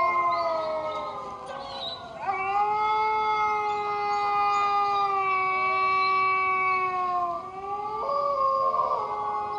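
Canine howling: long wailing notes, several overlapping at first, then one long held note of about five seconds that sags at its end, followed by shorter rising wails.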